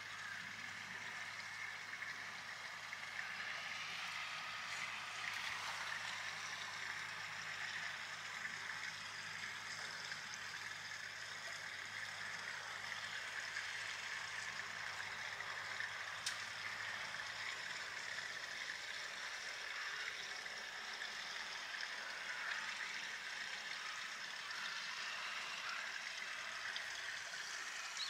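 Steady background hiss of the kind made by running water or general outdoor noise, with a faint low hum that fades out about two-thirds of the way through.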